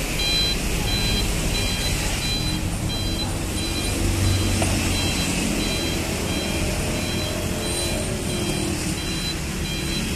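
A heavy truck's reversing alarm beeping in a steady repeating pattern, about two beeps a second, over its diesel engine running low. The engine swells a little about four seconds in as the tractor-trailer manoeuvres.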